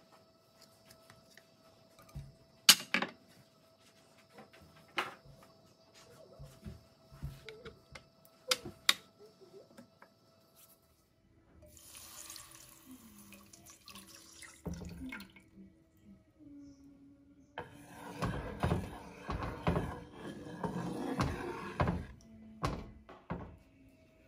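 Cooking sounds from a hot non-stick pan. Melting ghee gives scattered sharp clicks and crackles. About 12 seconds in, milk pours and splashes into the hot fat, and a louder rough, crackling, rushing stretch follows near the end.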